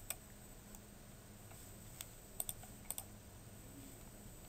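Sparse light clicks of computer keys, several in quick pairs, over a faint steady hum.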